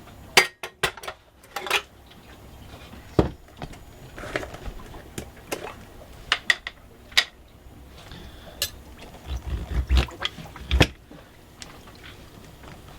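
Kitchen utensils and dishes clinking and knocking: scattered sharp clicks, with a few duller thumps about ten seconds in.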